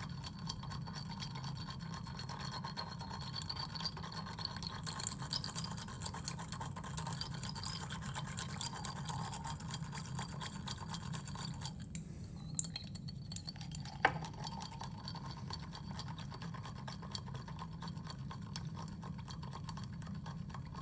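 Ice and sodium chloride solution being stirred in a small glass beaker: a thin rod scrapes and clinks rapidly against the glass and the ice, with a brief pause and a couple of sharper clicks about twelve to fourteen seconds in.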